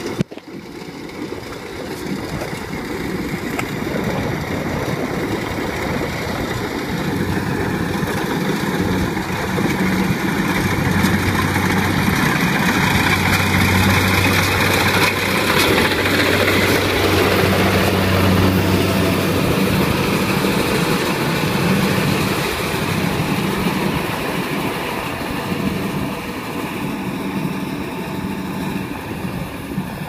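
Kubota rice combine harvester running as it cuts and threshes rice, its diesel engine and threshing gear making a steady, loud mechanical din. It gets louder about a quarter of the way in and eases off in the last third. A sharp click comes right at the start.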